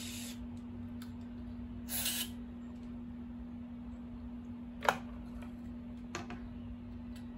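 CRC aerosol contact cleaner sprayed into a guitar's volume and tone pots: a brief hiss right at the start and a half-second hiss about two seconds in. A sharp click near five seconds is the loudest sound, with a softer click about a second later, over a steady low hum.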